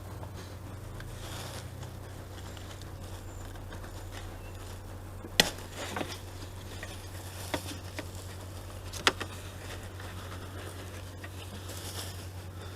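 A few sharp metallic clicks and taps from hands and tools working the hydraulic line and its clip free of an F17 gearbox's clutch slave cylinder, four of them spread over the middle of the stretch, the first the loudest. A steady low hum sits under them throughout.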